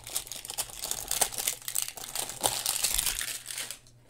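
Plastic wrappers of Panini Mosaic basketball card packs crinkling and crackling as they are handled and shuffled, in irregular bursts that fade out near the end.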